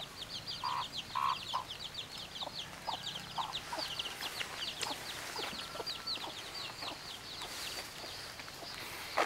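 Chicks peeping, a rapid, continuous stream of short high chirps that fall in pitch, with a few lower chicken clucks in the first couple of seconds.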